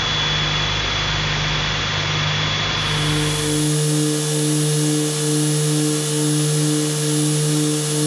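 OPTIMUM F-150 CNC milling machine cutting aluminium, a steady rushing machining noise. About three seconds in it changes to a steadier hum with a tone that pulses about one and a half times a second, as the engraving pass begins.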